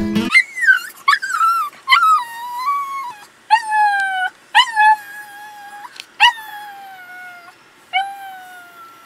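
A small dog whining: a string of about nine high-pitched whines, each jumping up sharply and then sliding slowly down in pitch, some short and some drawn out, most about a second apart and fading toward the end.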